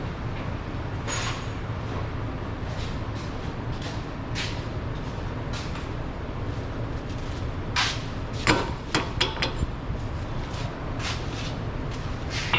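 Metal hand tools and parts clinking and knocking during work on a car's rear hub, with a quick run of sharp, ringing metallic clinks about eight seconds in, over a steady low hum.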